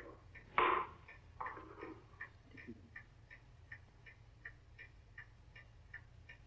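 A clock ticking steadily and faintly, a little under three ticks a second. A louder brief sound comes about half a second in, and another around one and a half seconds.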